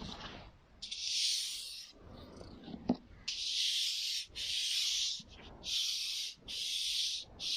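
Repeated rubbing or scratching strokes on a prop, about six scratchy swipes each lasting half a second to a second, with a single sharp tap near the middle.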